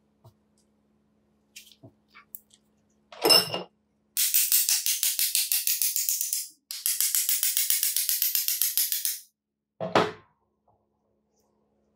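A small hammer taps rapidly on the rusty metal housing of a Makita HM0811 demolition hammer, about eight or nine light metallic taps a second. The taps come in two runs of a few seconds each, split by a short break. A heavier knock comes just before the tapping and another near the end.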